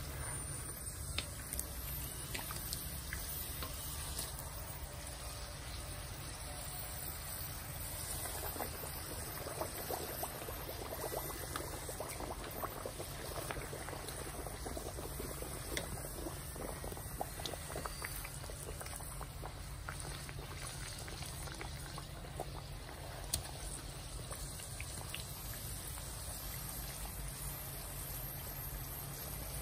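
Rounds of dough deep-frying in a wok of hot oil: a steady sizzle and bubbling with many small crackles, over a steady low rumble.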